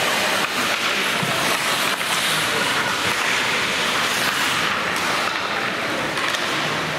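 Steady wash of crowd noise in a gymnasium during a basketball game, with no clear single voice standing out.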